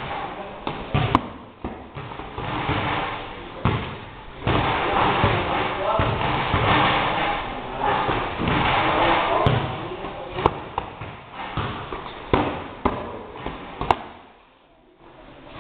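Boxing gloves landing punches in a sparring round: several sharp slaps and thuds scattered through, over steady voices.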